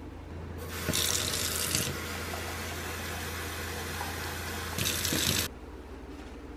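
Kitchen tap running into a stainless steel milk jug at the sink for about five seconds, splashing louder just after it starts and again shortly before it is shut off suddenly.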